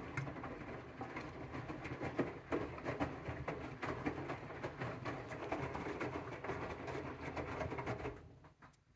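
AEG washing machine's drum turning a load of cleaning rags on a 95° cotton wash: a steady churning with many small knocks over a low hum, stopping about eight seconds in.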